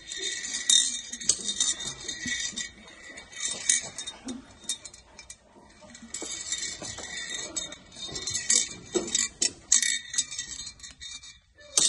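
Marbles being dropped into a clear jar, clinking and clattering against the jar and each other in several bouts.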